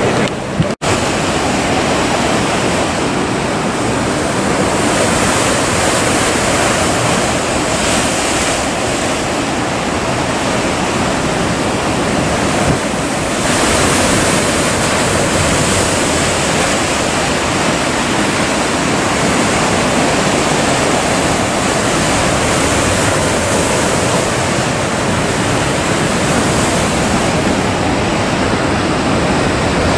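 Heavy ocean surf breaking and churning in rough water, a loud continuous rushing roar. It drops out for an instant about a second in.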